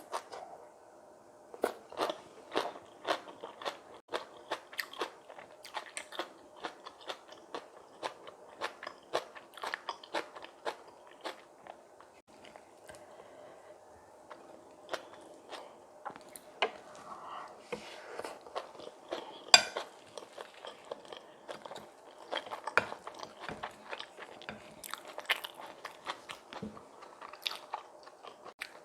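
Close-up crunching and chewing of kimchi bibimbap, with many short crisp crunches a few times a second. One crunch, about two-thirds of the way through, is louder than the rest.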